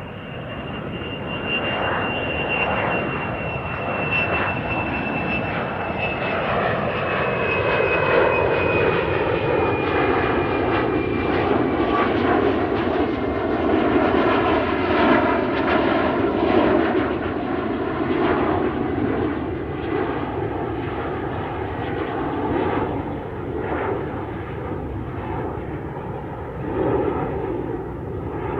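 Airplane taking off: loud engine noise swells over the first several seconds and then holds, with a thin high whine that slowly drops in pitch over the first ten seconds or so.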